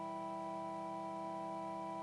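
Organ holding one sustained chord, steady and unchanging.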